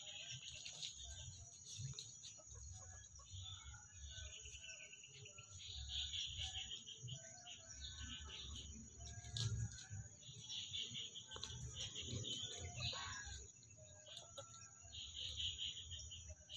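Chickens clucking softly as they forage, with bird chirps and a steady high tone behind them.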